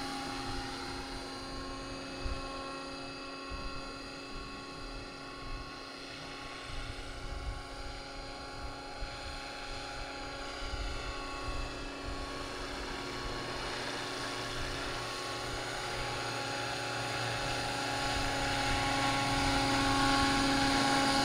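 Scale RC helicopter in flight: a steady whine from its motor and rotor drive over a lower rotor noise. It fades somewhat as it hovers farther off and grows louder over the last few seconds.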